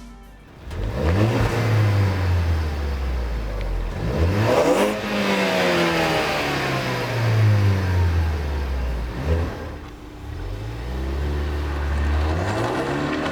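Ford Focus ST's turbocharged 2.0-litre four-cylinder running through an MBRP 3-inch mandrel-bent cat-back exhaust. The engine revs up several times, each rev climbing quickly and then falling away.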